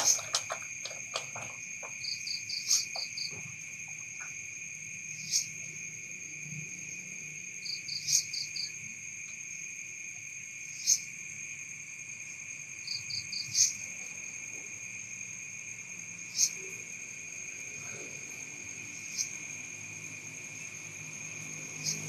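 Night insects, crickets among them, in a steady high-pitched drone. A short sharp call repeats about every two and a half to three seconds, and three times a quick run of four or five clicks follows it.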